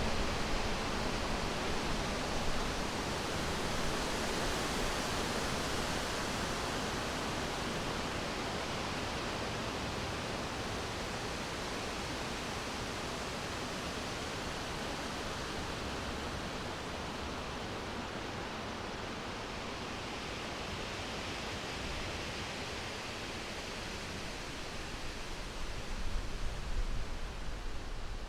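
Steady rush of running water, like a stream or small waterfall, a little louder near the end.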